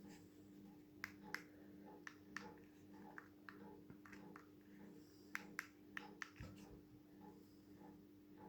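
Small plastic remote-control buttons, a WizMote's, clicking as they are pressed and released: about six pairs of sharp clicks over five seconds, over a low steady hum.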